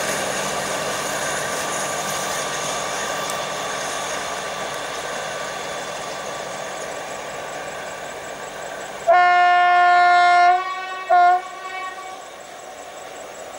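Diesel helper locomotive running light and drawing away, its engine sound slowly fading. About nine seconds in it sounds its two-tone horn in one long blast of about a second and a half, then a short toot a moment later.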